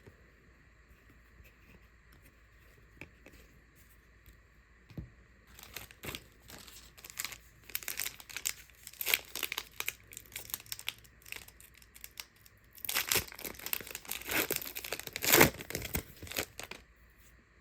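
Plastic trading-card pack wrapper being torn open and crinkled, in irregular crackling bursts that start about five seconds in and are loudest near the end.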